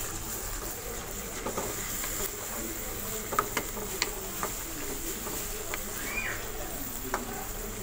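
Curry masala with yogurt simmering in a non-stick pan: a steady hiss with scattered sharp pops and clicks, the loudest about three and four seconds in. A wooden spoon stirs the pan near the end, and a short squeak comes about six seconds in.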